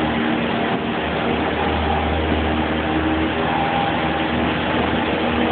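A canal boat's engine running steadily, with a constant low hum, inside the canal tunnel.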